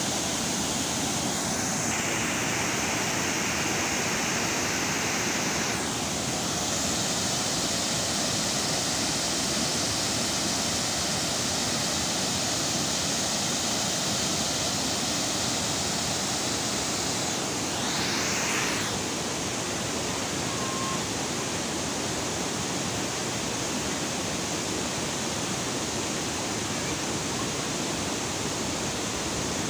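Water rushing over a weir and dam spillway: a steady, even rush of falling water that shifts slightly in tone a few times.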